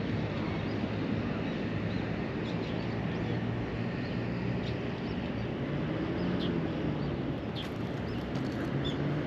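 Steady outdoor noise with a low engine hum that rises slightly in pitch near the end, and a few short, high chirps.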